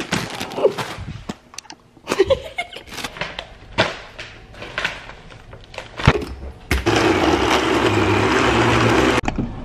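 Countertop blender running steadily for a couple of seconds near the end, blending berries and spinach into a smoothie, then cutting off. Before it, scattered knocks and rustles of packaging and ingredients.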